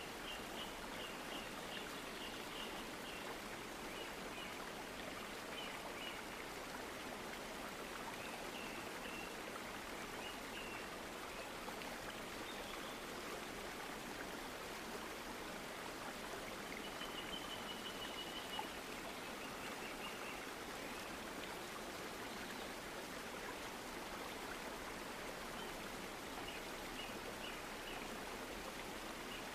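Steady hissing background noise, like running water, with faint high chirps in short quick runs every few seconds.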